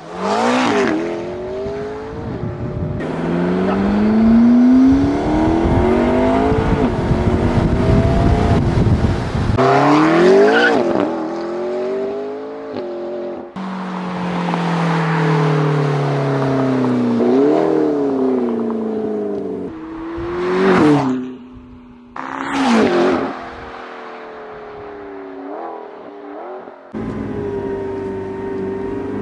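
McLaren 650S's twin-turbo V8 with an Akrapovic titanium exhaust, accelerating hard in a run of short clips. The engine note climbs and drops back at each gear change, with a few quick fly-bys.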